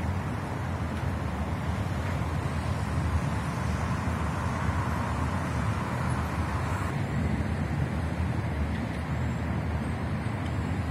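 Steady road traffic noise, a continuous low rumble of passing cars.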